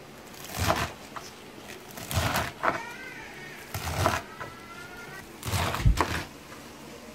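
Chef's knife cutting through a pile of leafy greens (spinach, amaranth and lamb's quarters) on a plastic cutting board: a crunchy slicing stroke every second or two, with a double stroke near the end.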